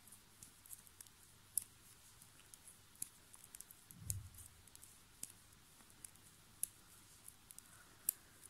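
Metal circular knitting needle tips clicking together, faint and irregular, as stitches are worked, with one soft low bump of handling about four seconds in.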